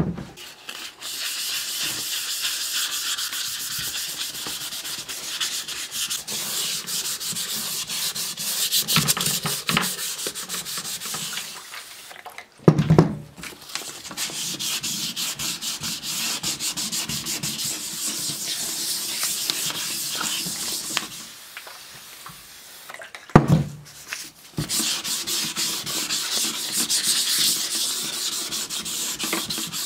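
Wet sandpaper rubbing back and forth over the painted steel shell of a WWI German M16 Stahlhelm, a steady scratchy sanding. The sanding breaks off twice, and each pause holds a single loud knock.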